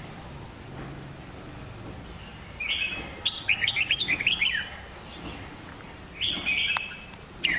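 Small birds chirping in quick runs of short high notes, one run about two and a half seconds in lasting around two seconds, another shorter one around six seconds, and a brief chirp near the end.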